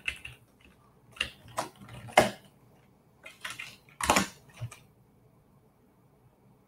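Computer keyboard typing: short irregular bursts of key clicks, heard through a video-call microphone, stopping about five seconds in.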